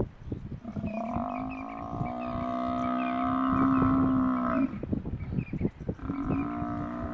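A Cape buffalo bellowing in distress under a lion attack: two long, steady, drawn-out calls, the second beginning about six seconds in. Short knocks and rustles from the struggle in the brush run underneath.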